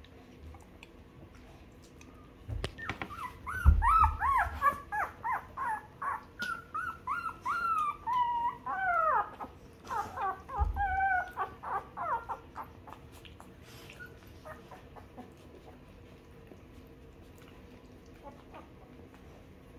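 Two-week-old puppies whimpering and squealing while nursing: a run of short, high cries that slide up and down, lasting about ten seconds from about two and a half seconds in, with a few low thumps among them, the loudest near the start. After that the cries stop and only faint clicks remain.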